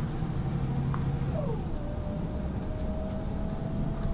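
Inside a Scania OmniLink articulated city bus on the move: a steady low running hum. About a second and a half in, a whine falls in pitch, then holds and slowly climbs.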